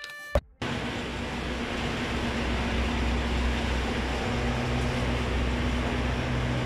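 Steady low mechanical drone of idling machinery beside a parked truck. A second low hum joins about four seconds in. Just before the drone begins, a short cartoon sound cuts off about half a second in.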